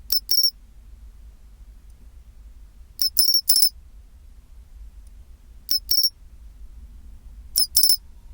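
Pine cricket (matsumushi, Xenogryllus marmoratus) calling its "chin-chiro-rin" song: four short, high, bright phrases of two or three quick notes each, one every two to three seconds.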